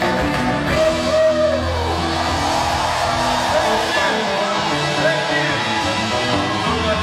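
Live Ethiopian pop band playing, with electric guitar, keyboard and drums, and a voice singing over the music.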